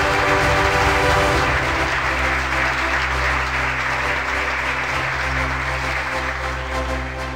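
Crowd applauding, a dense steady clapping, over background music with held chords.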